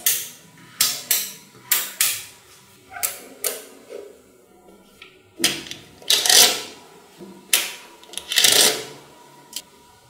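Small magnetic balls clicking and clacking together as they are snapped into place and pressed by hand. There are a dozen or so sharp single clicks, with two longer clattering rattles, one a little past halfway and one near the end.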